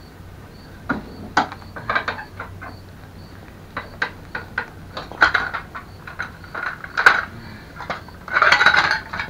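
Metal hand tools clinking and knocking against a mobility scooter's rear frame, a dozen or so separate sharp clicks, then a dense rattle of rapid clicks near the end.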